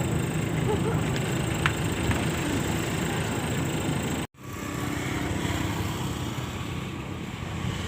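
Engines running steadily, with a short, complete break in the sound about four seconds in.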